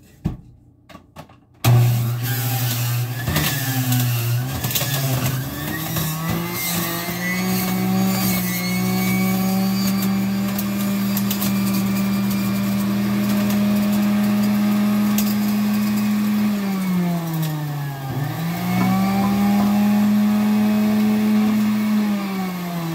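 Electric juicer motor running as celery is fed through it. It starts with a few clicks, then the motor hum rises in pitch over several seconds and holds steady. Its pitch sags and recovers twice, about 17 s in and near the end, as the motor is loaded by the celery.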